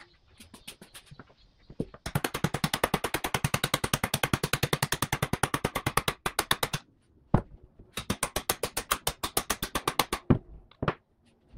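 Hand socket ratchet clicking rapidly and evenly, about ten clicks a second, in two long runs, as it turns the nut at the mower wheel's hub. A few single knocks come before and between the runs.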